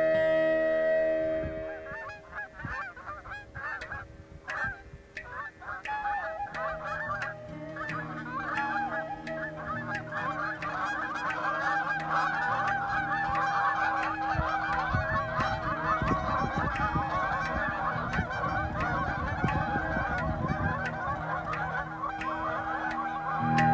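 A flock of Canada geese honking in flight. Scattered calls at first build into a dense, continuous chorus of overlapping honks.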